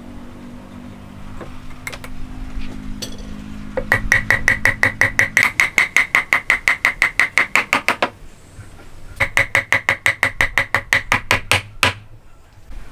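Hammer tapping rapidly on the top of a wooden beam, driving a hand-cut Japanese corner joint together onto its post. There are a few single knocks at first, then two runs of quick, even blows, about five a second: the first lasts about four seconds and the second is shorter, after a brief pause.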